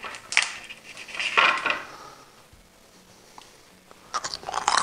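Crisp air-fried pork crackling being handled and broken, with a sharp crack about half a second in, a brittle crunch about a second and a half in, then a quick run of hard crunches near the end, the sound of crackling cooked hard and crispy.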